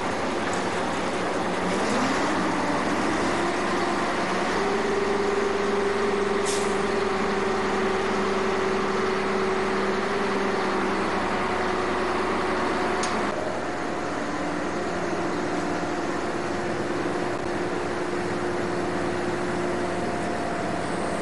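An engine running steadily under a rushing noise. Its hum rises in pitch about two seconds in, holds, then shifts to a lower, slightly quieter pattern about thirteen seconds in.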